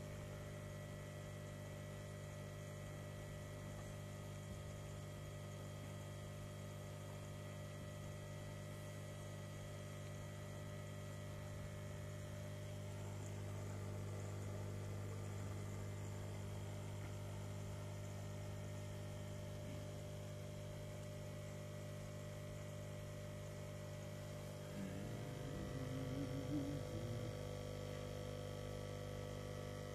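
Steady electric hum of a saltwater aquarium's pump equipment, the air pump driving a homemade protein skimmer, with a strong low tone and several higher overtones. A short louder irregular sound comes in near the end.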